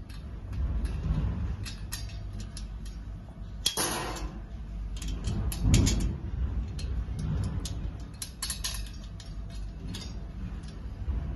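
Gold-plated iron frame tubes and connectors being handled and slotted together by hand, giving scattered small metal clicks and scrapes, with a louder scrape about four seconds in. A low steady rumble runs underneath.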